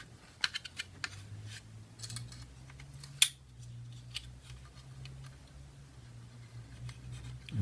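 Small scattered clicks and taps of parts being handled while a spring is lined up inside an airsoft rifle's lower receiver, with one sharp click about three seconds in. A steady low hum runs underneath.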